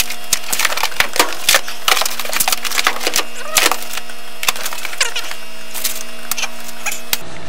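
Paper pages and forms being rapidly flipped and rustled, with books and binders handled on a desk: a quick, dense run of crackles and knocks that stops abruptly near the end.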